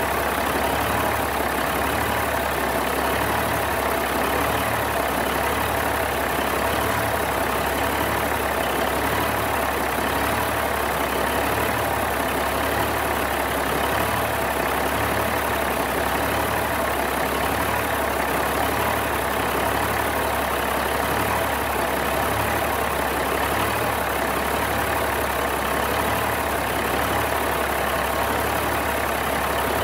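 Caterpillar 3406B inline-six diesel truck engine idling steadily.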